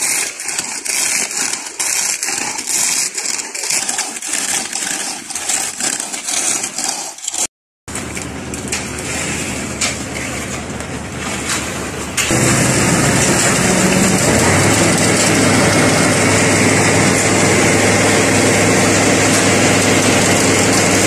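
Rakes and shovels scraping through wet concrete, a busy, irregular scraping. After a cut, an engine runs steadily, becoming clearly louder about twelve seconds in.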